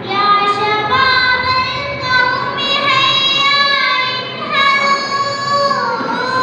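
A young girl chanting Arabic verse in a sung, melodic style into a microphone, holding long notes that bend and waver in pitch between short breaths.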